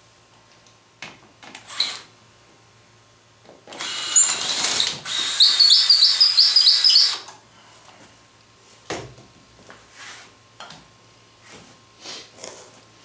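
Cordless drill running for about three and a half seconds, most likely driving a screw into the wooden frame; in the second half its whine breaks into a quick string of short, repeated high chirps. A few light knocks and clicks of handling come before and after.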